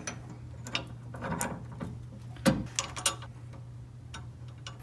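Sway bar end link and its bolt hardware being handled and fitted: a few light metallic clicks and knocks, irregularly spaced, over a steady low hum.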